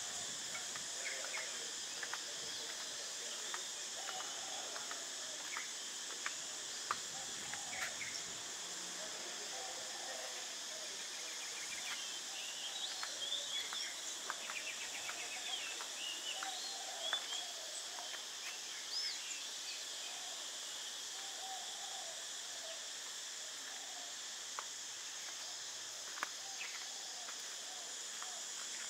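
Steady high-pitched drone of an insect chorus, with scattered short bird chirps.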